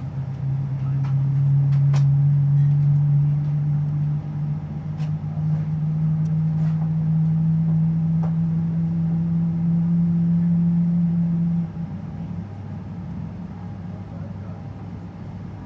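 Cabin noise of a Boeing 777-200LR while taxiing: a loud, steady droning hum that steps up in pitch twice. It cuts off suddenly near the end, leaving a quieter, lower rumble, with a few faint clicks along the way.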